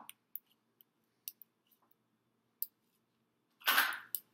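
Faint metallic clicks and ticks of a lock pick moving the pins inside a clear practice padlock, a few scattered over the first three seconds. Near the end comes a louder, brief rasping scrape.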